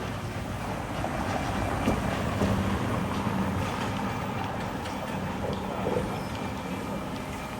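A motor vehicle's engine running close by, with a low steady hum that swells and then eases as it passes, over street ambience with small clicks.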